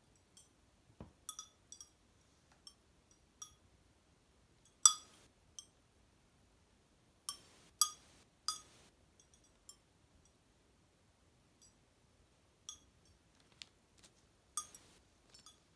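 Marlborough crackle-glazed ceramic tiles pinging as their glaze cracks: sharp, high, glassy clinks at irregular intervals, like wind chimes, the loudest about five seconds in and a cluster around eight seconds.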